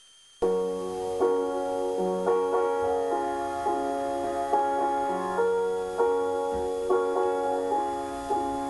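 Keyboard chords playing a song's instrumental introduction, starting about half a second in, with sustained notes and a new chord every half second to a second.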